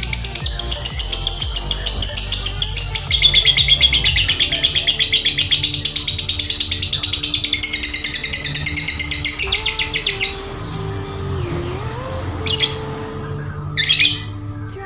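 Lovebird singing a long, rapid, unbroken chattering trill (ngekek) for about ten seconds, then stopping abruptly. Two short chirps come near the end over quiet background music.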